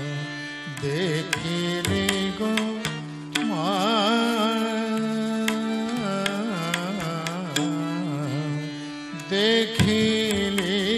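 Odissi classical vocal in Raga Kirabani: a male voice sings wavering, ornamented phrases over steady held harmonium notes, with mardala drum strokes keeping Ektaali rhythm.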